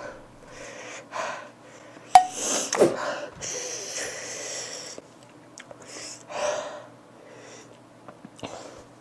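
A woman's hissing mouth breaths and gasps, from the mouth burn of an extremely spicy chili-coated peanut. The breaths come in separate bursts, with a sharp one about two seconds in and a longer hissing exhale about halfway through.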